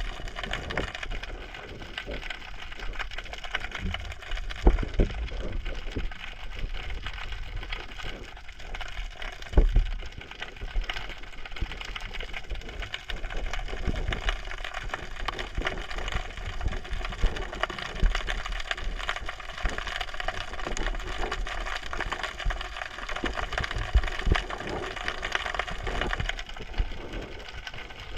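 Underwater crackle picked up by a GoPro dropped into the sea: a dense, continuous patter of small clicks with low thuds from water surge, and sharper knocks about 5 and 10 seconds in.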